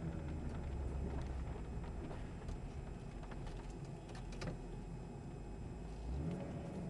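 The 2002 Ford F250's 5.4-litre gas V8 running steadily with road noise, heard from inside the cab while driving, with a few light clicks about four seconds in.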